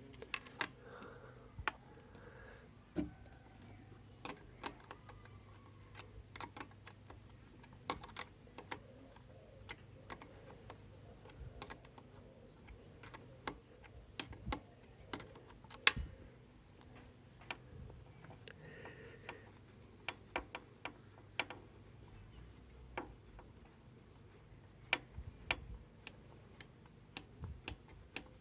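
Irregular light metallic clicks and taps of hand tools and small parts being handled during motorcycle engine work, with one sharper click about halfway through, over a faint steady low hum.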